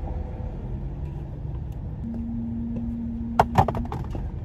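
Cleaning supplies and a small car vacuum being handled in a car's trunk: a couple of sharp knocks and a short clatter about three and a half seconds in, over a steady low rumble.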